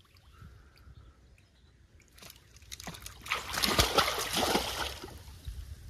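Pond water splashing: a few light splashes about two seconds in, then a hard, loud splashing for about two seconds that dies away near the end.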